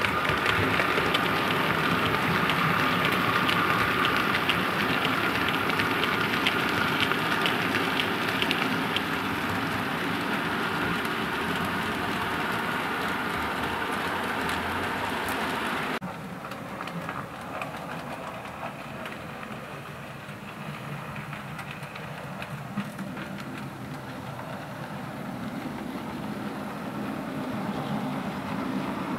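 00 gauge model trains running on the layout track: a steady hum with rapid clicking from the wheels. About halfway through it cuts abruptly to a quieter sound that slowly grows louder as another model train approaches.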